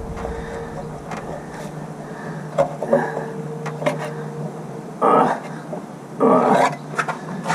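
Scattered metal clicks and knocks as a stuck timing cover is worked loose from a Ford 302 V8, over a steady low hum. Two louder strained grunts of effort come about five and six seconds in.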